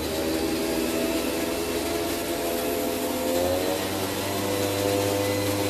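A motor running steadily, its pitch shifting a little and a deeper hum coming in about three and a half seconds in.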